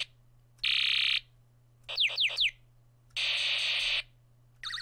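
Space Battle snap-kit's sound chip playing space-war sound effects through its small speaker. There are harsh buzzing bursts, three quick falling laser zaps about two seconds in, another buzz, and a warbling tone near the end.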